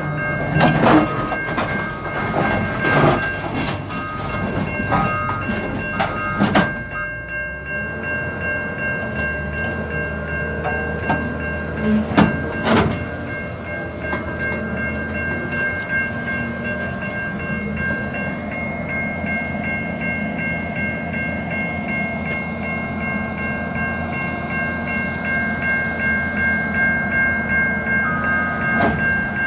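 Tracked excavator's diesel engine running steadily with a high whine, while its steel tracks clank and knock on the steel rail car, most in the first seven seconds, with a loud knock about twelve seconds in.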